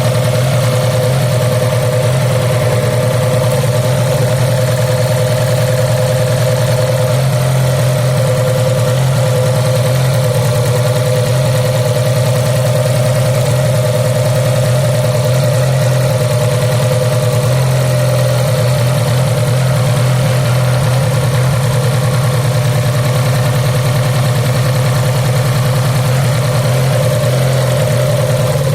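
Fiat Punto petrol engine idling steadily with a pulsing low note, the rough idle of an ignition misfire from a faulty spark plug lead.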